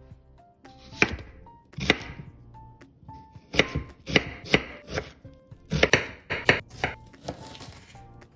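Kitchen knife slicing through a peeled onion and knocking on a bamboo cutting board: about ten cuts, two spaced about a second apart, then quicker runs of cuts.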